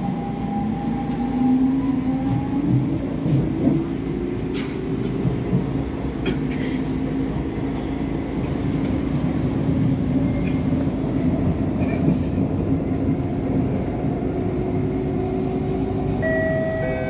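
SMRT C651 metro train heard from inside the car as it pulls away: the whine of its Siemens GTO-inverter traction motors rises in pitch over the first few seconds as the train accelerates, then holds steady over the rumble of wheels on rail. A few sharp clicks come through midway, and higher-pitched tones join in near the end.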